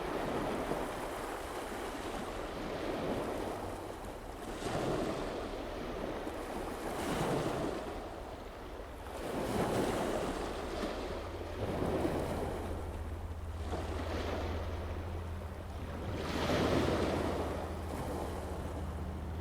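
Wind gusting against the microphone in swells every two to three seconds over open water. A steady low hum comes in about halfway through and continues to the end.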